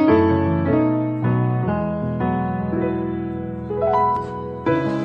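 Background music played on piano, a melody of single notes and chords that each strike and fade.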